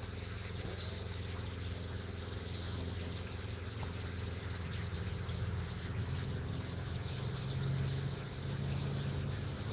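A steady low motor hum made of a few even tones, growing a little louder late on.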